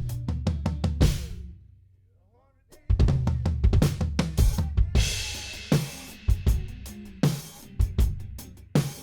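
A band track's drum kit playing kick, snare and hi-hat over a bass line. It drops out to near silence about a second and a half in, comes back just before the 3-second mark, and a cymbal crashes about two seconds after that.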